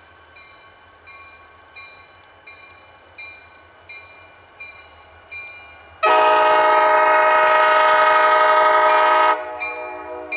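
Diesel locomotive's air horn sounding one long blast of about three seconds, starting about six seconds in. Throughout, a bell dings roughly every 0.7 seconds and grows louder as the train approaches.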